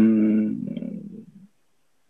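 A man's drawn-out, steady-pitched "uhh" of hesitation between phrases, trailing off a little past halfway, then silence.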